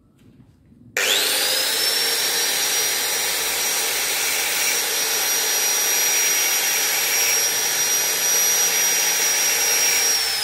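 Electric angle grinder switched on about a second in, its whine rising quickly to a steady high pitch, running while it cuts a thin transverse groove across a glazed motorcycle drum brake shoe lining, then winding down at the end.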